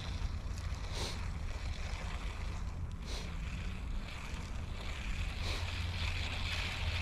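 Wind buffeting the microphone: a steady low rumble, with a few faint brief hissy swishes over it.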